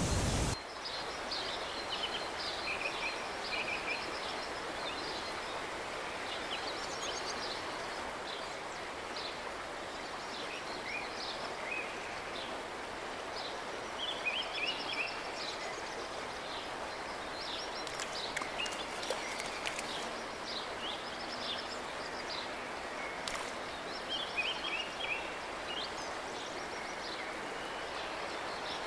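A loud rush of water cuts off abruptly about half a second in, giving way to a steady river flow with birds singing and chirping throughout in short, repeated phrases.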